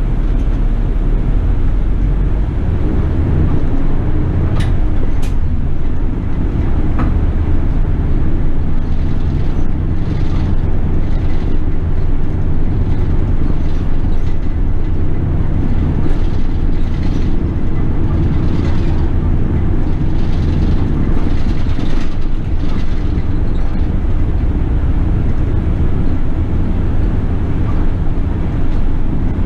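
City bus running along the road, its engine and road noise making a steady low drone, with a few sharp clicks about four to seven seconds in.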